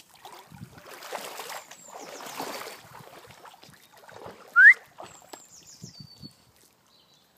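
Water splashing and sloshing as cocker spaniels move through a stream, with one short rising squeak about four and a half seconds in.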